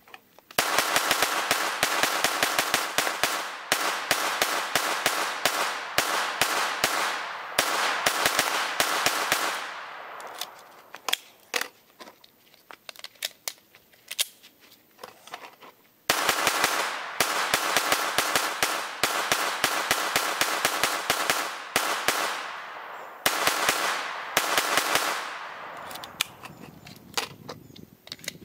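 AR-15 rifle firing rapid semi-automatic strings back to back, each shot followed by a short echo. There is one long string, a pause of about six seconds with a few scattered clicks, then two more strings close together.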